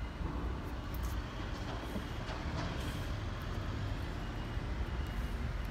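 Steady low rumble of outdoor background noise with a vehicle-like character, with a few faint light clicks.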